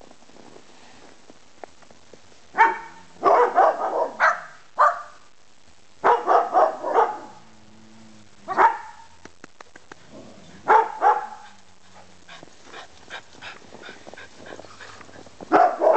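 A dog barking in clusters of quick barks, with pauses of a second or two between the clusters.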